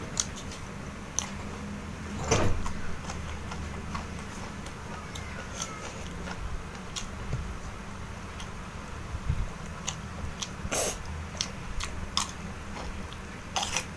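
Close-up eating sounds: irregular crunches, clicks and mouth noises of chewing food, including raw vegetables, with a few louder crunches about two seconds in, near eleven seconds and near the end. A steady low hum runs underneath.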